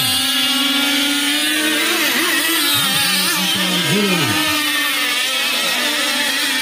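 Several racing radio-controlled speedboats' motors running flat out with a high whine, the pitch rising and falling as the boats pass and turn.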